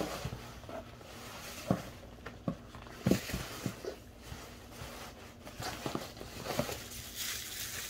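Hands rummaging in a cardboard box of bubble-wrapped Funko Soda cans: plastic wrap rustling, with scattered light knocks and taps as the packages are handled.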